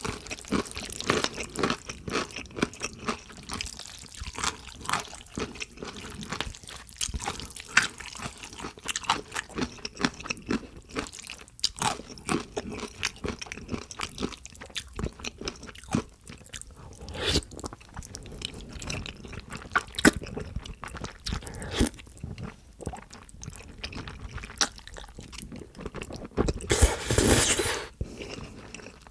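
Close-miked mouth sounds of eating jajangmyeon: wet chewing and lip smacks on sauce-coated noodles, with a longer, louder slurp of noodles near the end.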